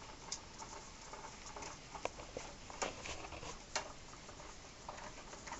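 Scattered light clicks and taps of a socket wrench working against metal as a motorcycle's starter mounting bolt is broken free and loosened.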